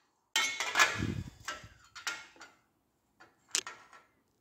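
Metal parts clinking and knocking as they are handled: a quick run of clatter in the first second, then a few separate clicks, with one sharp click near the end.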